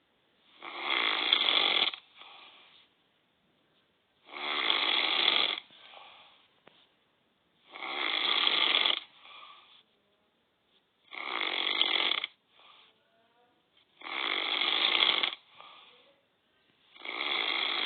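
A man snoring in a slow, even rhythm: a loud snore about every three and a half seconds, each lasting a little over a second and followed by a fainter, shorter breath sound. The last snore begins near the end.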